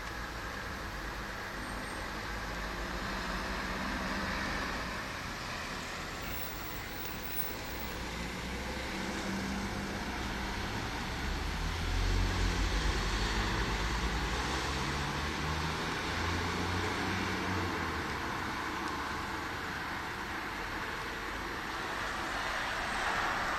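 Steady hiss of heavy rain, with a low rumble that swells about ten seconds in and fades away near eighteen seconds.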